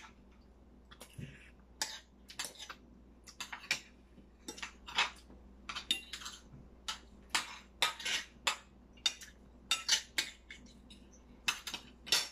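Forks and spoons clinking and scraping against dinner plates as people eat: many short, sharp, irregular clinks.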